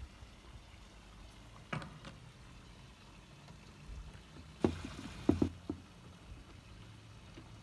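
A few sharp knocks and clunks from handling a particle-board drawer while fitting a corner brace, the two loudest a little past halfway, over a faint low hum.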